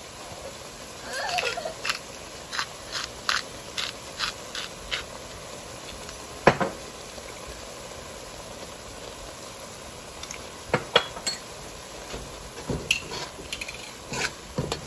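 Light clicks and clinks of utensils against a metal pan of stew, with a run of them in the first few seconds, one louder clink about six and a half seconds in, and more near the end.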